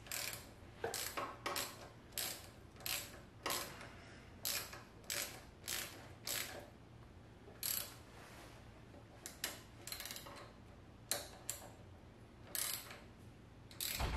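Hand ratchet clicking in short bursts, worked back and forth with brief pauses, as it tightens a fork pinch bolt on a motorcycle's triple clamp.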